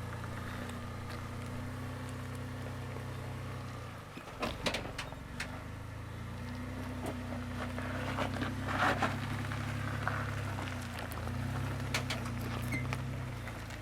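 Pickup truck engine running at low revs as the truck crawls over a rock obstacle, the revs easing and rising again under throttle, with tires crunching and popping over rock and gravel about four seconds in and again near the middle.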